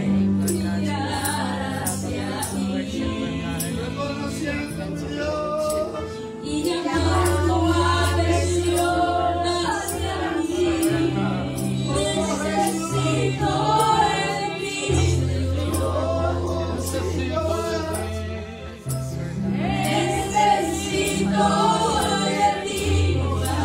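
Gospel worship song: a woman's singing voice over an accompaniment of held bass notes that change every few seconds.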